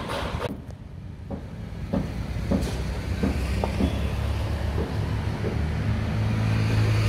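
Low, steady engine drone that grows louder near the end, with a few faint ticks over it.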